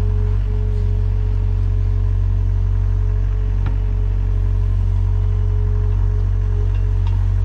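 Sany 60 excavator's diesel engine running steadily with a low hum and an even whine over it, and a couple of faint knocks partway through.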